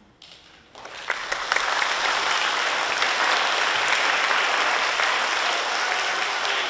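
Audience applauding, starting about a second in and then holding steady.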